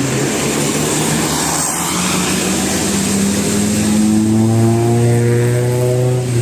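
Coach bus engine running loud under a steady rush of noise, its note rising slowly as the bus accelerates and growing louder about two-thirds of the way in.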